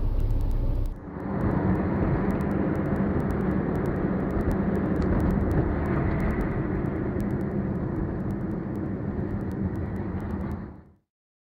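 Car driving noise heard from a dashcam inside the car: a steady rumble of engine and tyres on a snowy road, with faint scattered ticks. The sound changes abruptly about a second in and cuts off suddenly near the end.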